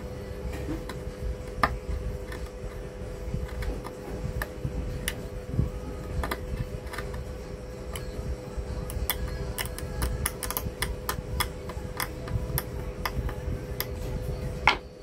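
Hobby-knife blade scraping and clicking against a circuit board as it cuts through a corroded copper trace: irregular sharp ticks that bunch up about two-thirds of the way through, with a sharper click near the end, over a steady faint hum.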